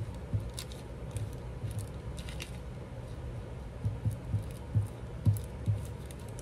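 Paper and craft pieces being handled on a tabletop: soft knocks and light rustles, with a run of several taps in the second half.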